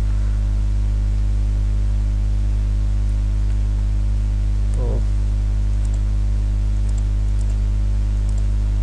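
Steady electrical mains hum at about 50 Hz with a ladder of overtones on the recording. A few faint computer-mouse clicks come near the end.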